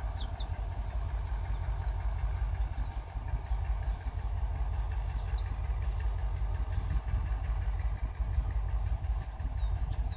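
Diesel engine of an EMD G22U locomotive running with a steady low rumble as the train approaches slowly. Birds chirp briefly a few times over it.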